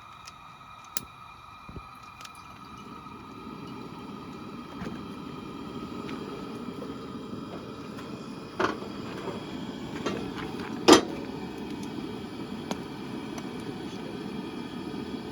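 A cooking burner being lit under a Dutch oven: a few sharp clicks, then a steady rushing flame noise that builds from a few seconds in and holds, with two louder clanks around the middle.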